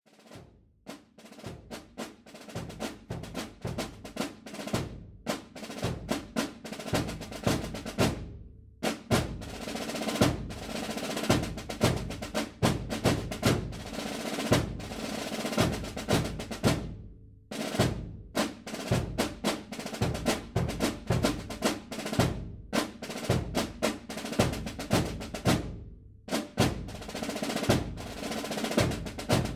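Military drum cadence: snare and bass drums beating a marching rhythm with rolls, broken off briefly several times.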